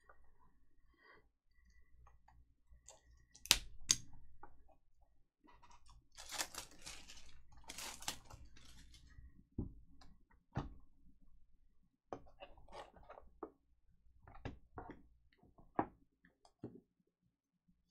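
Plastic shrink wrap crinkling as it is torn off a box of trading cards, after two sharp clicks about three and a half seconds in. Scattered light clicks and taps follow as a clear plastic card case is handled and set down.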